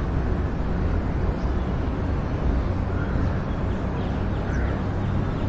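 Steady low rumble of outdoor background noise, with a few faint high chirps.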